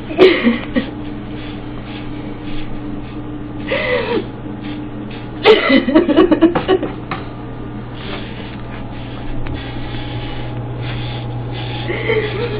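Electric hair clippers buzzing steadily as they shave a head down to stubble. A woman's crying sounds break in a few times, loudest about five to seven seconds in.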